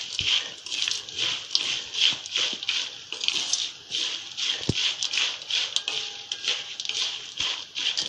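Wooden spatula stirring fried peanuts, roasted dal and coconut slices in oil in an aluminium kadhai: rhythmic scraping and rattling of the nuts against the pan, about two strokes a second, with a few sharp clicks.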